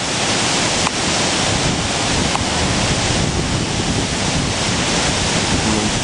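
Muddy flash-flood water pouring over the Zin waterfall into its rock plunge pool, a loud, steady rush of water. Wind buffets the microphone underneath it.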